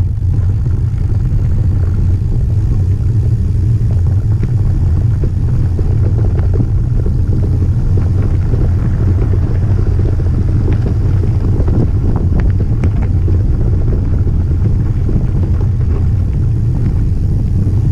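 Steady low rumble of wind buffeting the camera microphone on a mountain bike riding down a gravel track, with faint scattered ticks of the tyres rolling over gravel.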